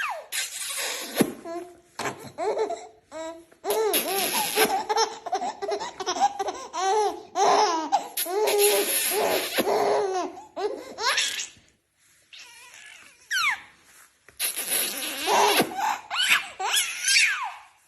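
A baby laughing in repeated high-pitched bouts, with a short pause about two-thirds of the way through before the laughter picks up again.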